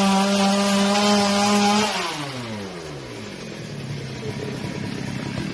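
Two-stroke chainsaw held at full throttle with a steady high whine. About two seconds in the throttle is released, and the engine note slides down and settles into a rough, putting idle.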